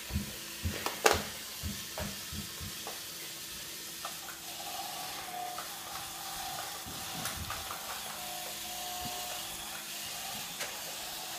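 Fisher-Price GeoTrax battery toy train running on plastic track: a steady hiss with a faint motor whine. Light knocks come over the first few seconds, the sharpest a click about a second in.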